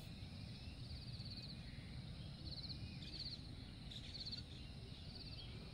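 A cricket chirping in short pulsed trills, high-pitched and evenly spaced about once a second, over a faint low rumble.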